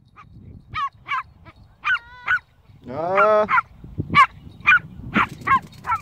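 Small dog yipping, about a dozen short, high-pitched yips in quick bursts, with one longer, lower call about three seconds in.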